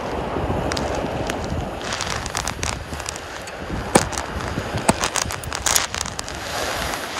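Wind rumbling on the microphone, then a run of irregular sharp clicks and crackles from about two seconds in, the loudest near the middle, as the lure is reeled up to the rod tip.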